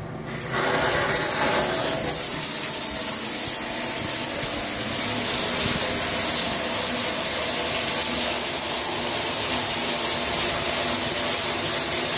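Shower panel turned on at full blast about half a second in: water spraying from the overhead rainfall head onto the tiled shower with a steady, loud rushing hiss. The owner finds this noise excessive.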